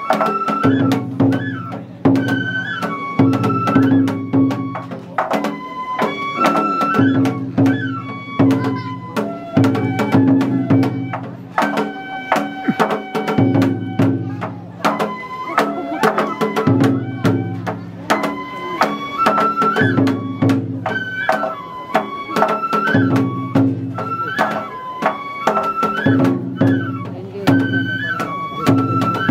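Japanese ohayashi festival music: a transverse flute (shinobue) plays a stepping, ornamented melody over steady, rhythmic taiko drumming.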